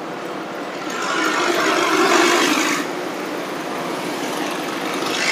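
Road traffic with engines running steadily, and one vehicle passing close that swells up about a second in and falls away before three seconds.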